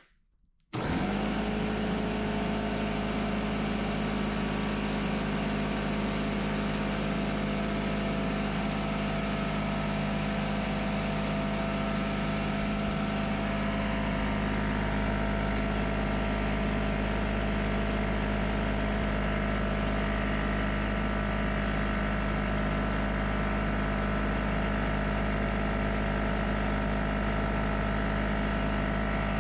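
Porter Cable pancake air compressor starting abruptly about a second in and running steadily with a constant hum. It builds no pressure in the tank: the air it makes escapes from the unit, which the owner suspects is a worn rubber seal in the tank inlet valve.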